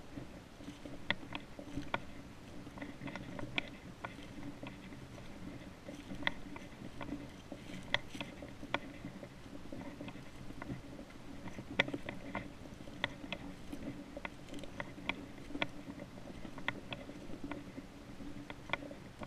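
Footsteps crunching through dry fallen leaves on a woodland trail, a steady walking pace with irregular crackles and snaps.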